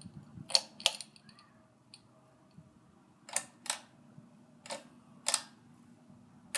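Ceiling fan's pull-chain speed switch clicking as the chain is pulled and let go, three times, each pull a pair of sharp clicks, stepping the fan down toward off. A faint low hum runs underneath.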